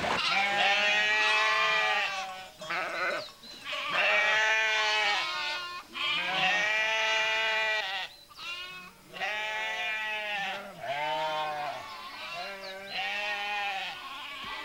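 Sheep bleating: a run of long, wavering bleats, about seven in a row, one after another with only short gaps between them.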